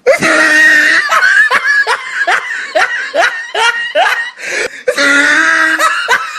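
Loud laughter: a run of short ha-ha bursts, two or three a second. It is framed by a loud held blast that starts suddenly at the beginning and a second one about five seconds in.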